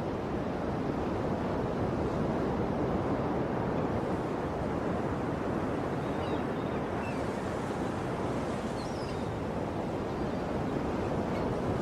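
Sea surf: a steady wash of waves with no clear breaks. A few faint high chirps sound about halfway through.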